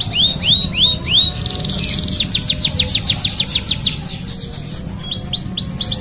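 Domestic canary singing a long, continuous song: a few slow down-slurred whistles, a short buzzy phrase, then fast trills of rapidly repeated downward-sweeping notes that change pace several times.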